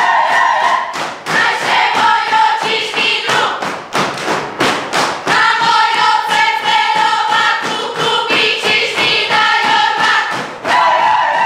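A group of mostly female voices singing a karička folk song in unison, over rhythmic stamping of dancers' feet on a wooden floor. The singing drops out for a moment near the middle while the stamping goes on.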